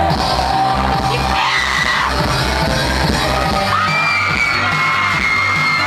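K-pop dance track playing loudly through a hall's sound system with a steady beat and male vocals sung into a microphone, with fans screaming over it.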